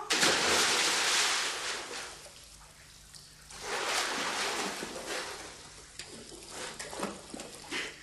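A person diving into a swimming pool with a big splash that dies away over a couple of seconds, then swimming, with a second burst of splashing about four seconds in and smaller splashes near the end.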